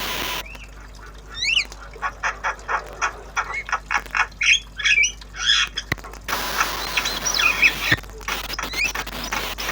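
Javan myna squawking and chattering: short rising whistles, rapid clicking notes and harsh squawks, with a steady hissing rush at the start and from about six seconds in.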